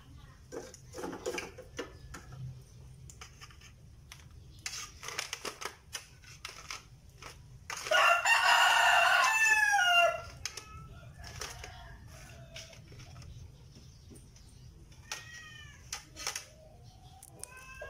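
A rooster crows once, loudly, about eight seconds in: a call of about two seconds that drops in pitch at its end. Around it, a metal spatula clicks and scrapes in a frying pan.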